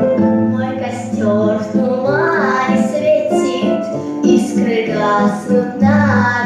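A girl sings a Russian romance solo, with a wavering vibrato on the held notes, over a plucked-string accompaniment.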